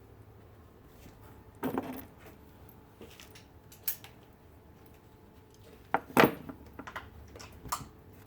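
Small metal tools or parts clinking and clanking against each other a handful of times, with the loudest clank about six seconds in, over a low steady hum.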